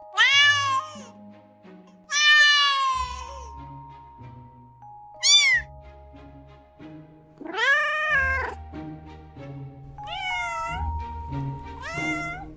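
A kitten meowing repeatedly, six separate meows, each rising and falling in pitch, one about halfway through short and very high. Soft background music with held notes plays underneath.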